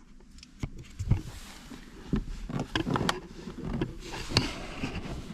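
Plastic dashboard trim panel of a Nissan Micra K12 being worked loose by hand: a string of irregular clicks and knocks as the panel is pulled and its clips shift.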